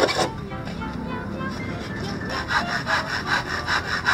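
Saw cutting through a wooden board in quick, regular back-and-forth strokes, about four a second, growing stronger in the last second and a half.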